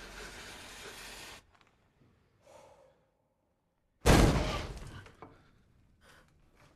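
Horror film soundtrack: a faint hiss that cuts off, near silence, then about four seconds in a sudden loud burst of noise that fades away within a second.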